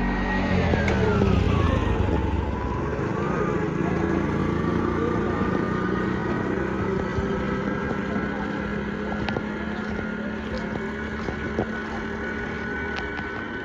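Motor vehicle engine noise running steadily, with one tone dropping in pitch about a second in, like a vehicle passing close by.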